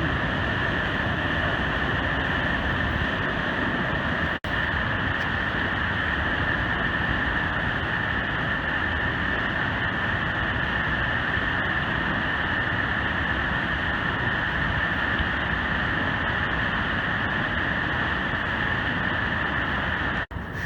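Steady rush of a large waterfall, the Great Falls of Paterson on the Passaic River: an even wash of falling water. It breaks off for an instant about four seconds in and again near the end.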